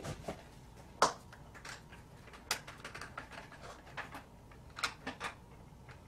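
Metal worm-drive hose clamp being tightened with a screwdriver around a plastic cup: a run of irregular small clicks and taps, the sharpest about a second in.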